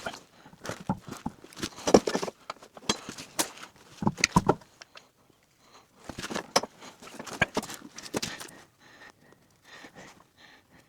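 Irregular clicks, clinks and knocks in bursts with short pauses between them, as of objects being handled and set down.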